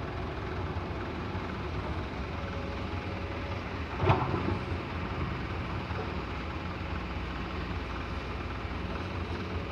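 Excavator's diesel engine running steadily, with one loud knock about four seconds in.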